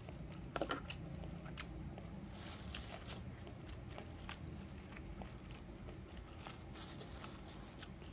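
Faint chewing of a mouthful of kimbap, with scattered small wet clicks and smacks of the mouth.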